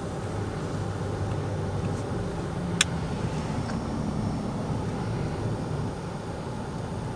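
Engine and road noise heard from inside a moving vehicle's cabin: a steady low hum, with a single sharp click about three seconds in.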